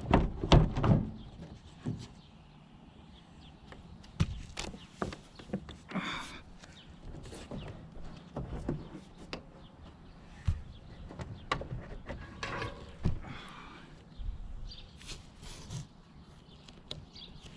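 Duct tape being pulled off the roll in a couple of longer rasps, among scattered taps and knocks from handling the plastic air conditioner cover.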